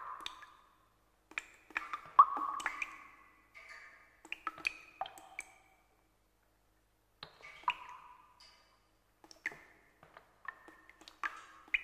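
Irregular clusters of sharp taps and clicks, each ringing briefly with a high ping, separated by short pauses.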